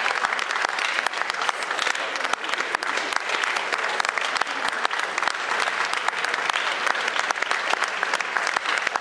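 Concert audience applauding with steady, dense clapping.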